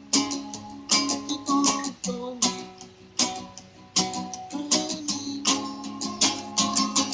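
Acoustic guitar strummed in an instrumental passage, a chord struck about every half second and left ringing between strokes.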